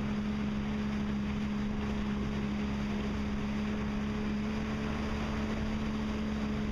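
Yamaha WaveRunner personal watercraft engine running at a steady speed: a constant drone over an even rushing hiss.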